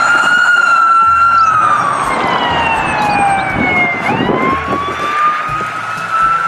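Police SUV siren sounding a slow wail: its pitch falls over about four seconds, then snaps back up and rises again.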